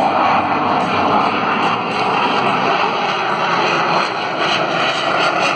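Loud, steady jet noise from an F/A-18 Super Hornet's two turbofan engines as the fighter flies its display overhead.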